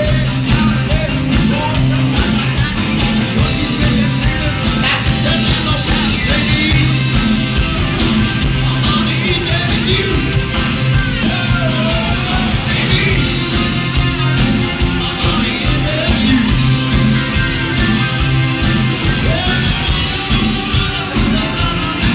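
Live rock and roll band playing, with a male lead vocal over electric guitar and drums keeping a steady beat.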